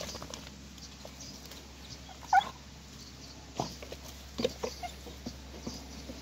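Beagle puppy giving one short whimper about two seconds in, with short scuffling noises of paws and nose in the dirt and dry leaves.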